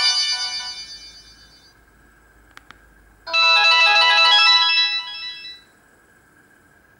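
Samsung GT-E1200Y mobile phone playing its built-in ringtones: one melody dies away over the first couple of seconds, two short clicks follow, then another ringtone melody starts about three seconds in, plays for about two seconds and fades out.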